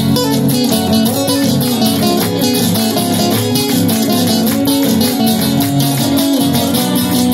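Two acoustic guitars strumming and picking steadily in an instrumental passage of a gato, the Argentine folk dance, with an even, driving rhythm.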